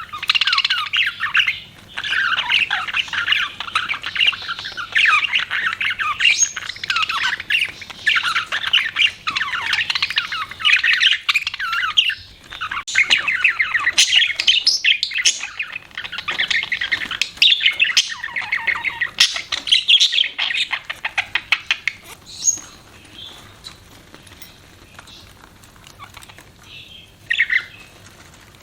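Budgerigars warbling and chattering, a dense run of quick chirps and squawky notes that thins out after about twenty seconds to a few scattered calls.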